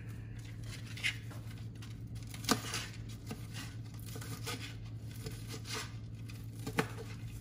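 Chef's knife cutting through a crispy fried chicken tender on a plastic cutting board: crackling crunch of the breading, with three sharper knocks as the blade meets the board, about 1, 2.5 and 7 seconds in.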